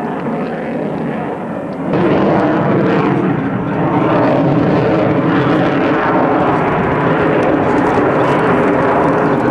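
Jet noise from a Sukhoi Su-30 fighter's twin turbofan engines: a loud, steady rush with engine tones running through it. It jumps louder suddenly about two seconds in and rises again a little before four seconds.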